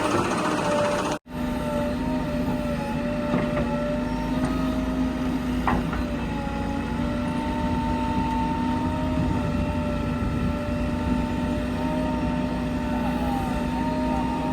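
Heavy diesel engine of earthmoving machinery running at a steady speed, a constant droning hum. The sound drops out abruptly for an instant about a second in, then carries on unchanged.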